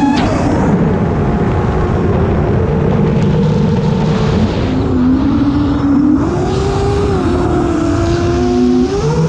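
FPV quadcopter's brushless motors and propellers whining, the pitch sliding up and down as the throttle changes, over a steady rush of wind and prop noise, heard from the drone's own camera.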